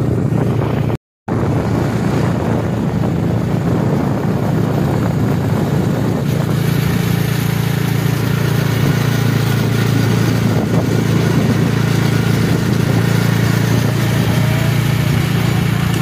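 Bajaj Dominar motorcycle running steadily on the road, its single-cylinder engine hum under a rush of wind noise. The sound cuts out for a moment about a second in.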